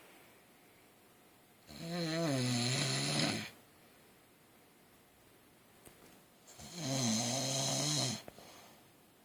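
A man snoring in his sleep: two long snores about five seconds apart, each lasting under two seconds, with quiet gaps between.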